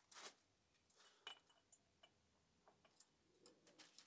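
Faint, scattered small metal clicks and ticks as a thin screwdriver nudges a hardened-steel valve collet into place against the valve stem and spring retainer of a compressed valve spring, with a short rustle right at the start.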